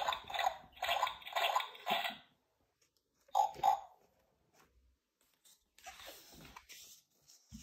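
A toy sound book's small electronic speaker playing its muddy-puddle splashing sound effect: a quick run of splashes for about two seconds, then one short burst about a second later. Near the end, a faint rustle of paper.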